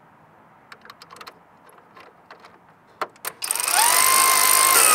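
A few faint handling clicks, then about three and a half seconds in a cordless power tool with a socket extension starts up. Its motor whine rises quickly and holds steady as it drives a sensor-mounting screw into the plastic grille, with a slight dip in pitch near the end.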